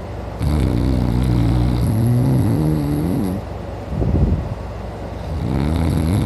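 A man snoring loudly in deep sleep: one long snore of about three seconds that bends in pitch as it ends, a quieter breath, then the next snore starting near the end.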